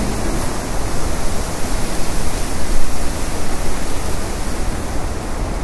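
Steady loud rushing noise with no pitch, its low rumble rising and falling unevenly.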